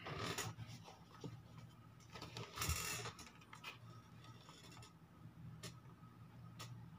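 Faint handling noise: plastic rubbing and rustling as a hand moves over the table, in two short bursts, one at the start and one about two and a half seconds in, with a few light clicks over a steady low hum.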